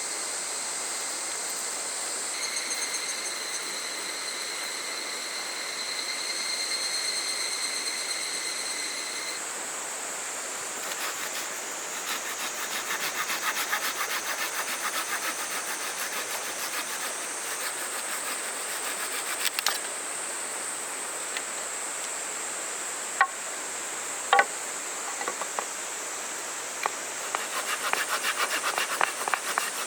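A hand saw cutting wood in steady back-and-forth strokes, starting about a third of the way in and growing louder near the end. Underneath is a continuous high drone of summer cicadas, with a couple of sharp clicks in the middle.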